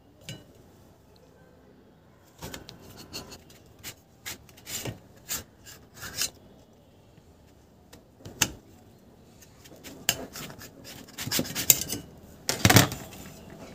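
Kitchen knife slicing through a peeled eggplant on a stainless steel plate, the blade scraping and tapping the plate. Two runs of short strokes, the loudest scrape near the end.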